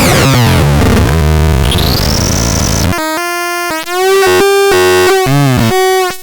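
Belzebulon B electronic synthesizer making harsh, noisy tones that sweep down in pitch, then, about three seconds in, switching to a quick sequence of stepped pitched notes that jump up and down every fraction of a second.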